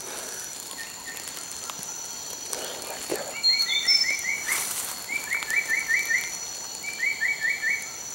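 Jungle ambience: a steady high-pitched insect drone, over which an unseen animal calls three quick runs of five or six short chirps each, starting about three seconds in. A brief swish comes between the first two runs.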